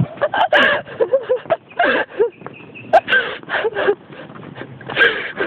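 Wordless breathless laughing and gasping from people, in short broken bursts, with sharp knocks and fabric rubbing from a phone being handled against clothing.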